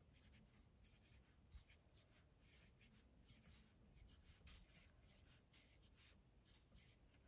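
Pencil writing digits on lined paper: a faint, steady run of short scratching strokes.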